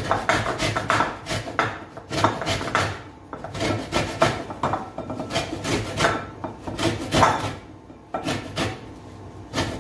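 Orange rind being grated for zest on a metal box grater: a quick run of rasping strokes, broken by two short pauses.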